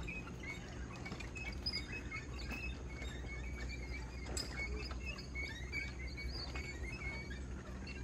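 Woodland birds chirping in short, scattered notes over steady low background noise, with one sharp click about four and a half seconds in.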